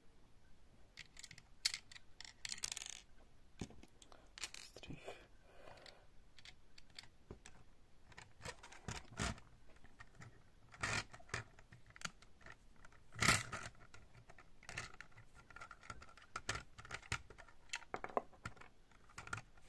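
Small plastic LEGO pieces clicking and rattling as they are handled, with irregular sharp clicks and a few short rattling stretches; the loudest click comes about two-thirds of the way through.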